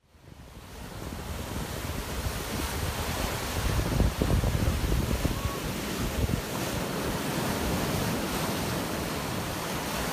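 Ocean surf breaking and washing up a sandy beach, with wind buffeting the microphone in low gusts, heaviest about four seconds in. The sound fades in over the first second.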